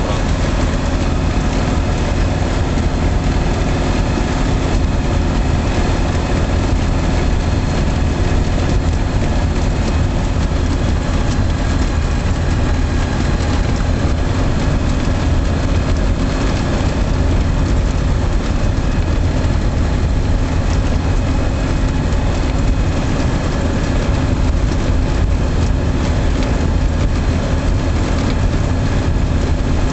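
Single-engine light aircraft's piston engine and propeller running steadily, heard from inside the cockpit while the plane taxis on grass.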